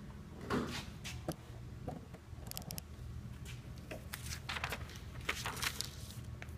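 Faint rustling and scattered light clicks of handling and movement, busier in the second half, over a steady low hum of room tone.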